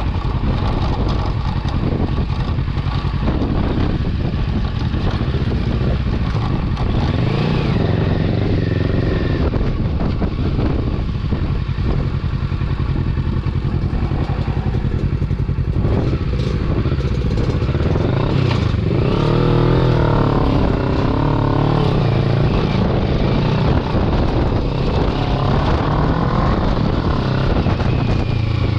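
Kawasaki Versys 650's parallel-twin engine running as the bike rides over a rough dirt and gravel track. Its revs rise and fall with the throttle, most clearly about two-thirds of the way through, over rattles and knocks from the bike on the stones.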